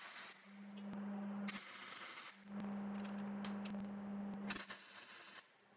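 MIG welding arc crackling and spitting in short tack-weld bursts of under a second, two full ones about a second and a half in and near the end. A steady low hum runs in the gaps between the welds.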